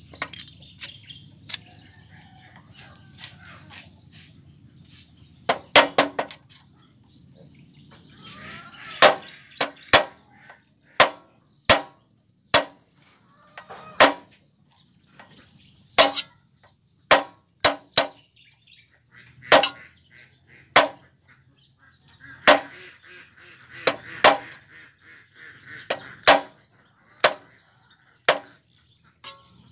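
Sharp knocks, a pair and then about one a second, from a screwdriver being tapped to loosen the fuel sediment cup fitting on a diesel engine.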